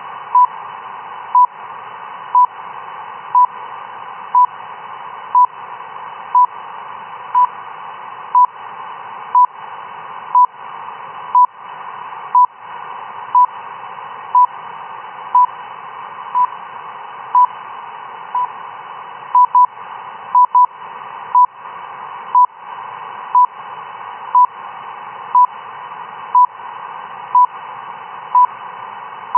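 RWM time-signal station received on shortwave in upper sideband: a short 1 kHz pip once a second over steady radio hiss. A few pips come doubled a little past the middle.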